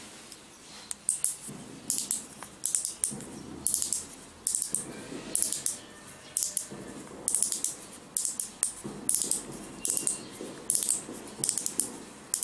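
Plastic meter seal's rotor being twisted by hand: its locking teeth ratchet in short raspy clicks, about two a second, with some fumbling of the plastic between them.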